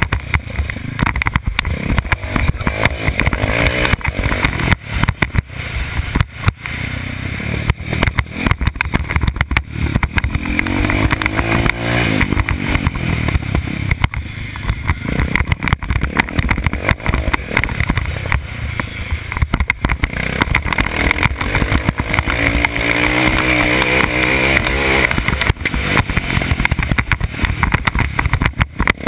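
Motocross bike's engine revving hard and easing off as the bike is ridden around a dirt track, its pitch climbing in repeated rises. Constant buffeting and jolts hit the bike-mounted microphone.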